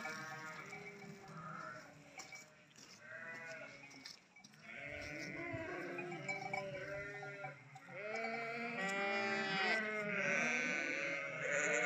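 A flock of sheep bleating, many calls overlapping one another, with a short lull about four seconds in.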